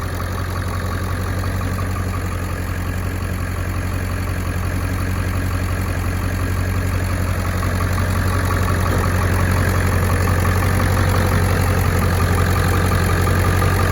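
2002 Ford F-250's 7.3L Powerstroke V8 turbo diesel idling steadily.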